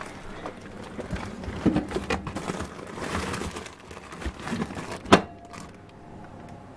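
Plastic storage bins and bags of frozen food handled and set onto freezer shelves: crinkling and rustling with several knocks, and one sharp clack about five seconds in.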